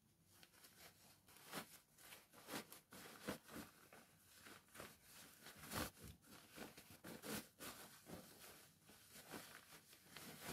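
Satin and Ankara fabric rustling faintly in short, irregular swishes as a sewn bonnet is pulled right side out through an opening left in its seam.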